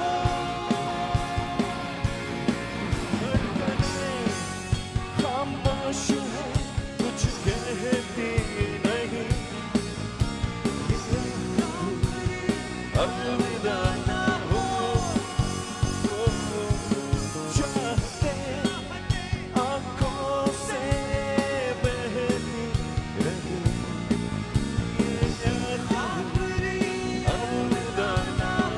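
Rock band playing live: a drum kit keeps a steady beat under electric guitars and bass, with a lead melody sliding up and down in pitch.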